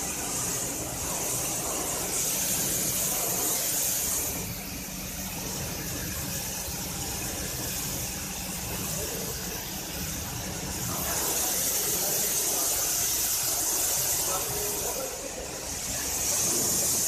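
Kärcher HD 6/15-4 Classic pressure washer's high-pressure water jet hissing as it sprays a car body. It grows louder and softer by turns as the lance sweeps, over a steady low hum.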